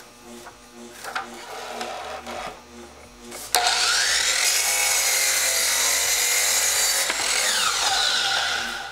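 A DeWalt sliding compound miter saw is switched on about a third of the way in. Its motor whine rises quickly to speed as the blade cuts through a length of crown molding. It is switched off a little after halfway, and the whine falls as the blade winds down.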